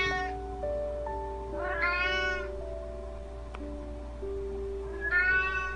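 Kittens meowing three times: once at the start, once about two seconds in, and once near the end. Each meow rises and then falls in pitch, over soft background music with held notes.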